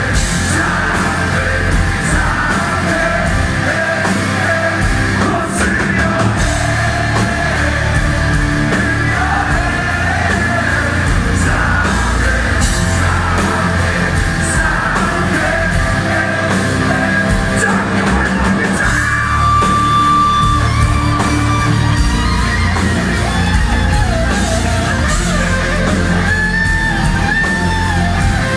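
Heavy rock band playing live through a large hall's PA, electric guitars and drums with a singer's voice over them, heard from within the crowd.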